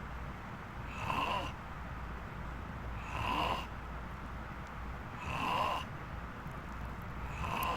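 Loud, odd-sounding snoring: a short snore about every two seconds, four in all, each rising in pitch as it goes.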